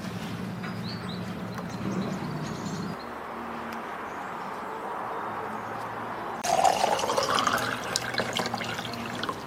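Water poured from a terracotta jug into a cup, starting suddenly about two-thirds of the way in, its pitch rising as the cup fills.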